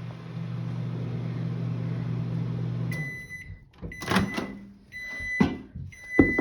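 Microwave oven running with a steady hum that cuts off about three seconds in as the heating cycle ends, followed by its high end-of-cycle beeps, about one a second, and a few sharp knocks.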